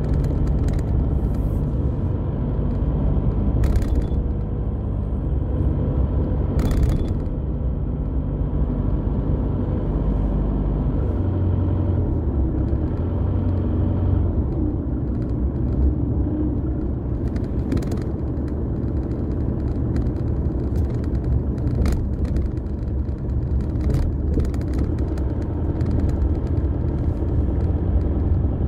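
Car driving on a rough rural road, heard from inside the cabin: a steady low engine and tyre rumble, with a handful of short sharp knocks along the way.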